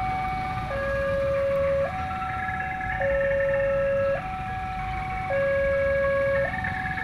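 Railway level-crossing warning alarm sounding its two-tone signal, a higher and a lower tone alternating about once a second, warning that a train is approaching and the barriers are down.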